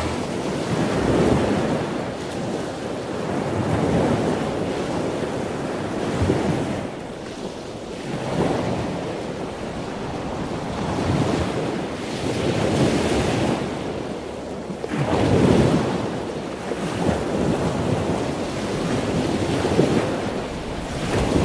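Ocean surf breaking and washing up a sandy beach, swelling and fading as each wave comes in every few seconds.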